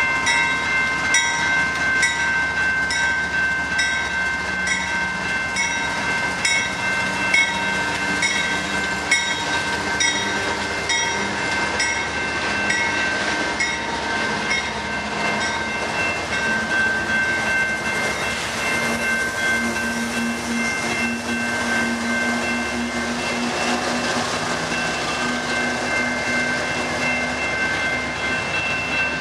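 A railroad grade-crossing bell rings in regular, evenly spaced strikes while a long Canadian Pacific intermodal train with GE diesel locomotives rolls past. From about halfway the noise of the locomotives and of wheels on rail swells and drowns out the bell's strikes.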